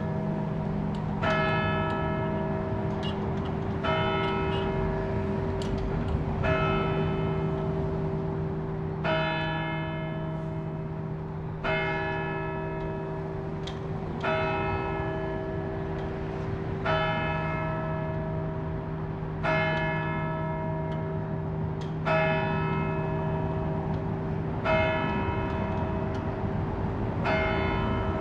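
Church tower bell striking the hour of noon: eleven slow, evenly spaced strokes about two and a half seconds apart, each ringing out. Steady lower bell tones hum underneath, and the deepest of them stops near the end.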